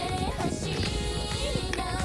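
Background music with a bright, gliding melody.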